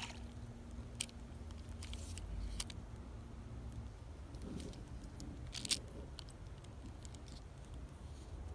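Fishing rod and reel being handled: a few sharp clicks and taps, one louder than the rest about five and a half seconds in, over a low steady rumble.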